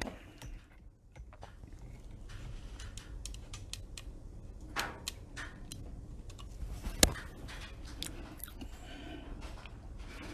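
Faint handling noise at a drawing desk: scattered light clicks and soft rustles, two slightly louder clicks about five and seven seconds in.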